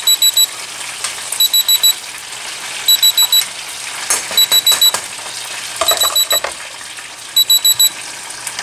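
Etekcity EK4150 digital kitchen scale's countdown-timer alarm beeping: high-pitched beeps in quick groups of four, a group about every one and a half seconds, signalling that the 30-minute countdown has run out. Okra frying in a pan sizzles steadily underneath.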